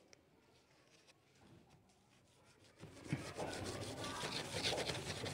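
A long metal blade scraping and rasping through the slot of a cardboard frame as it is worked through to cut the paper piece inside. It starts about three seconds in, after near silence, and goes on as a steady rough scrape.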